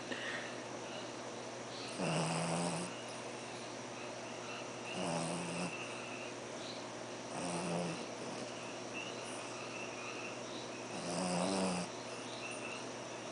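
French bulldog snoring: four loud snores, each just under a second long, coming every two to four seconds with quieter breathing between them.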